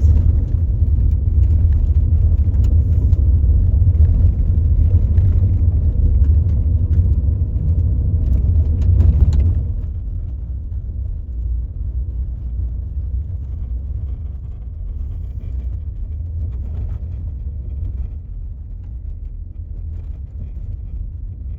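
Subaru Forester driving on a dry road, a steady low road-and-engine rumble that drops to a quieter level about nine and a half seconds in.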